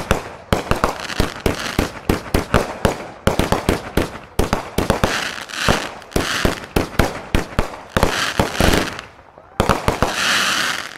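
Multi-shot consumer fireworks cake firing: a rapid string of sharp bangs, several a second, as its shells launch and burst. Hiss rises between the bangs. After a short lull near the end, one last loud hiss stops suddenly.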